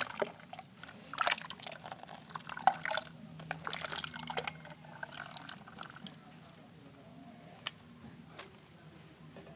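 Liquid splashing and dripping in a bucket of homemade fabric softener, busy through the first four seconds or so, then only a few scattered drips.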